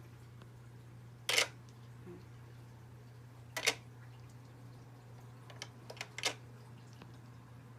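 Small hard plastic toy ice cubes clicking as they are dropped into a toy refrigerator's ice compartment: two sharp clicks a couple of seconds apart, then a few fainter ones.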